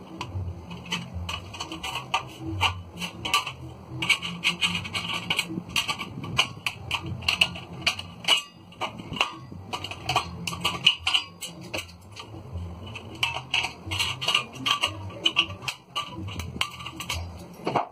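Galvanized steel drywall profile being handled and cut with tin snips: irregular metallic clicks, snips and scraping of thin sheet metal.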